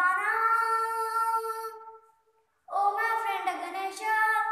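A young boy singing unaccompanied, holding one long note, breaking off for under a second about two seconds in, then singing on.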